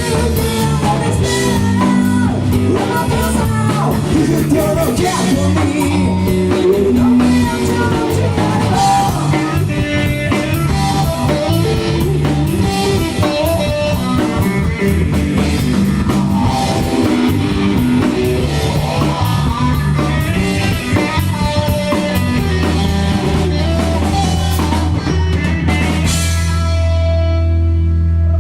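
Rock band playing live with guitar, drum kit and singing; near the end the band holds one final ringing chord.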